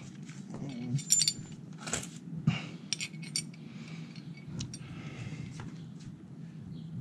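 Small metal hand tools and keys clinking and rattling as they are handled, a string of sharp clicks with one ringing metallic clink about a second in.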